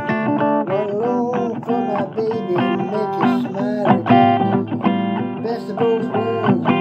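Blues guitar solo with bent notes over a steady backing, in an instrumental break of a blues song.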